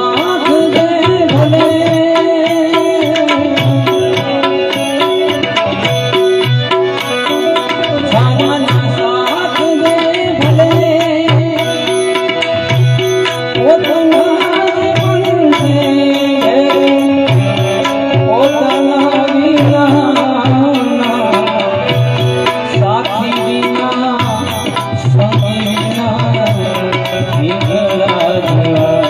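Devotional bhajan music: tabla playing a steady rhythm under a sustained melody line.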